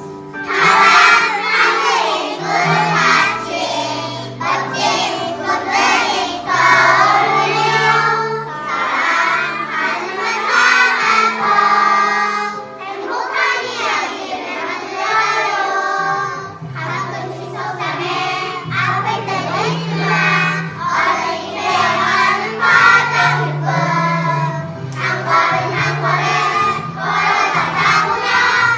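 A group of young children singing a children's song together in unison over a backing accompaniment.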